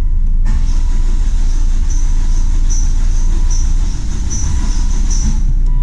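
2007 Volvo XC70 engine running on a shot of starter fluid sprayed into the intake, a loud, steady rumble with a fluttering high hiss above it. It runs only on the fluid because the fuel pump is not supplying fuel.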